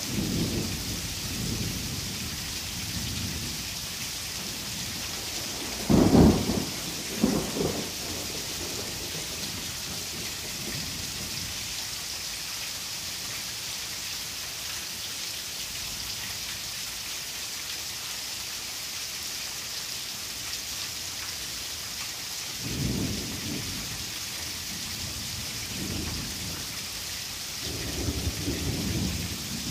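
Heavy rain pouring steadily onto a yard, with thunder rumbling. The loudest roll comes about six seconds in, and weaker rumbles follow in the second half, near the end.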